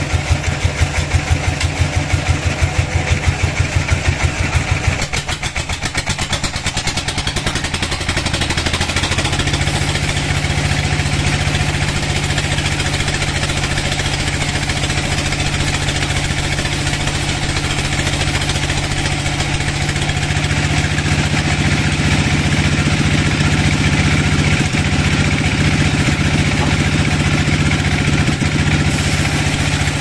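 Band sawmill running as its blade cuts lengthwise through a black teak log. The machine pulses evenly for the first few seconds, then settles into a steady drone.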